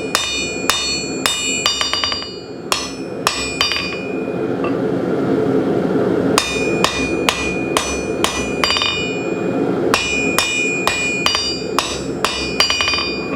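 Hand hammer striking hot steel bar on an anvil, knocking down its corners: sharp ringing blows about two a second, with light taps between, pausing for a couple of seconds partway through before the blows resume. A steady low hum runs beneath.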